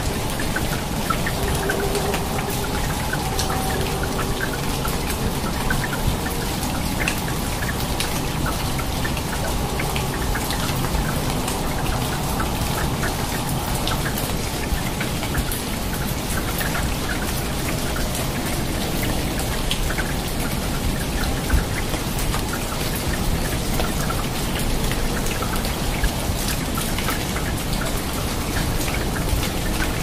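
Steady rain falling on rainforest foliage, with many separate drops striking close by.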